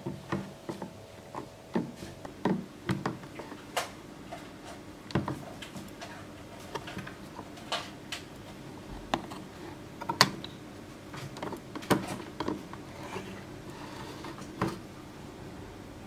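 Irregular light knocks and clicks of a plastic tub being rocked on a wooden bench to agitate the etching solution around a circuit board, over a faint steady hum.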